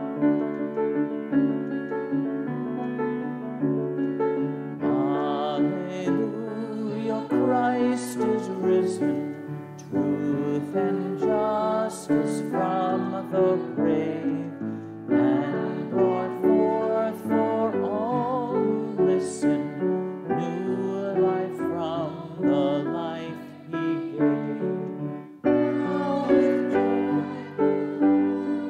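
A church hymn on piano with sustained chords; about five seconds in, singing with a wide vibrato joins the accompaniment.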